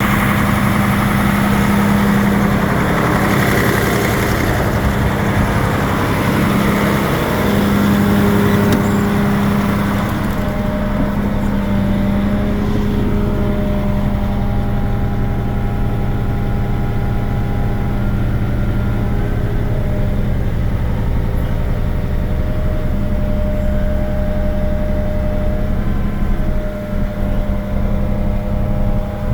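Diesel engine of a 2012 Tornado hydrovac truck running steadily. A hiss over the engine eases off about ten seconds in.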